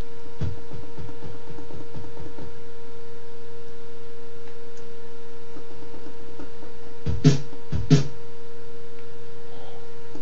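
Steady electrical hum with a high whine over it, and small clicks of the Ensoniq ASR-10 sampler's front-panel buttons being pressed. Two louder button clicks come a little over halfway through, about half a second apart.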